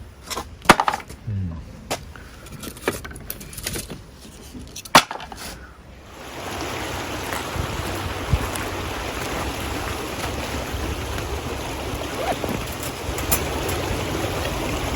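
Pieces of firewood knocking and clattering together as they are handled, a few sharp knocks over several seconds. About six seconds in, this gives way abruptly to the steady rush of a flowing river.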